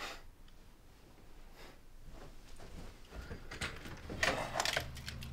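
Footsteps and a front door being unlatched and opened: a short click at the start, then a cluster of sharp clicks and rattles about four seconds in, with a low steady rumble coming in behind them.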